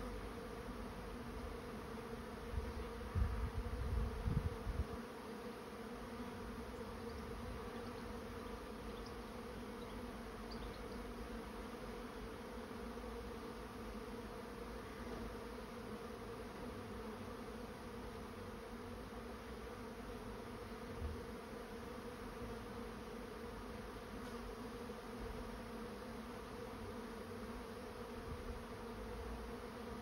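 A swarm of honey bees in flight, thousands of wings making a dense, steady buzzing hum as the swarm moves into a swarm trap. There is a brief low rumble about three to five seconds in.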